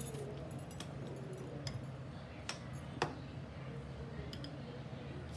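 A few light clicks and taps of a basting brush and utensil against a cast-iron dosa tawa while it is greased, over a steady low hum.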